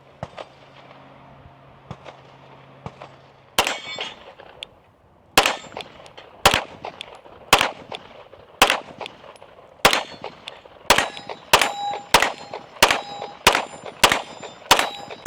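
Shots from a 9mm Staccato P pistol, each followed by the metallic ring of a struck steel target. A few spaced shots come first, then a steady string at about one a second that quickens to about two a second in the last few seconds.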